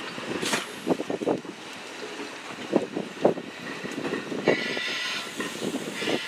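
Steel wheels of East Troy Electric Railroad interurban cars clacking over rail joints, in clusters of knocks every second or two as each truck passes, with a brief high squeal about four and a half seconds in.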